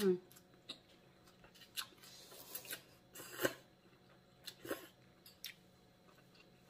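Close-up mukbang eating sounds: short slurps and crisp chewing of leafy greens and noodles eaten with chopsticks, coming in a few separate bursts. A brief voiced 'mm' right at the start is the loudest sound.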